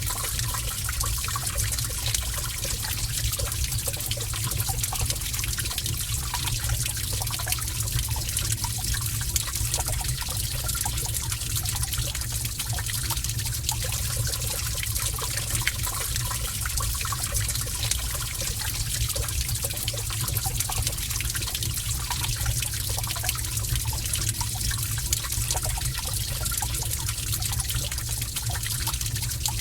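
Gentle running water trickling and splashing steadily in a cave, with a low rumble beneath the trickle.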